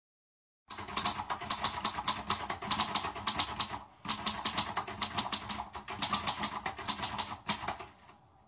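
Rapid clicking of typing keys, several strokes a second, in two runs with a short break near the middle, fading out near the end.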